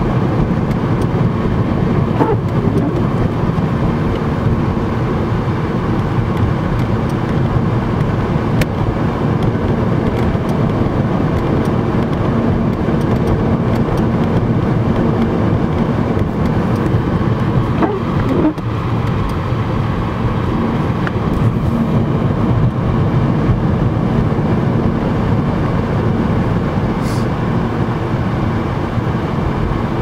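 Steady engine and road noise heard from inside a car's cabin as it drives along a snow-covered road in a blizzard, with a few faint ticks.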